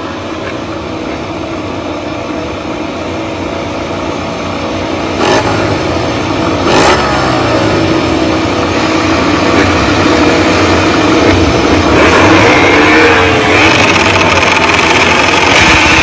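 Several MotoGP racing motorcycles revving their engines and pulling away, the sound growing louder about five seconds in. Two sharp cracks come about five and seven seconds in, and the engine pitch climbs near the end.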